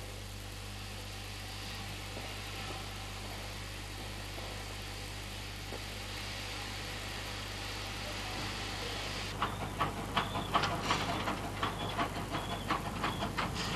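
Steam locomotive: a steady hiss of steam, then about nine seconds in a run of sharp, irregular beats, three or four a second, as it works.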